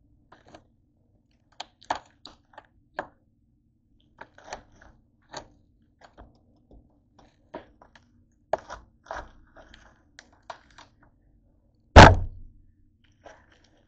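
A head of green cabbage being handled on a cutting board: leaves crackling and snapping in short scattered clicks, then one loud thunk near the end.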